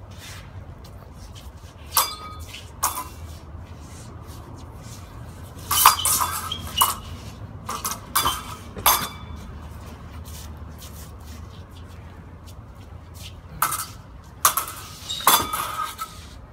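Steel practice swords clashing in sparring: sharp metallic clinks of blade on blade, coming in bursts. There are two about two seconds in, a flurry from about six to nine seconds, and another run near the end.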